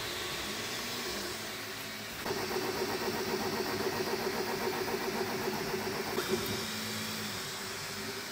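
Creality Ender 3 V3 KE 3D printer printing fast: a steady motor whine from the moving print head and bed over the hiss of its fans. The whine jumps higher about two seconds in and drops lower near the end as the moves change.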